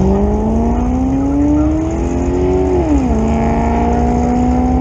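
Ford Ranger pickup's engine pulling through a gear, its pitch rising steadily, then dropping quickly about three seconds in as it shifts up, then climbing again, over a steady low rumble.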